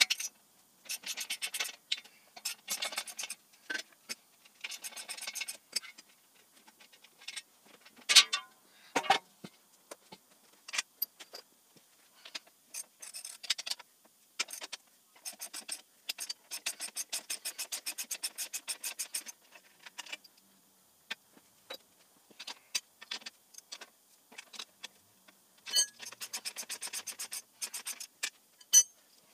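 Hand ratchet wrench clicking in quick runs as bolts are worked loose on the engine hoist's leg, with pauses between runs. Two sharp knocks about eight and nine seconds in.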